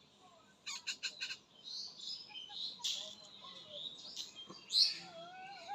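Indian ringneck parakeet giving short, high chirps and squawks, the loudest near the end. A quick run of sharp clicks comes about a second in.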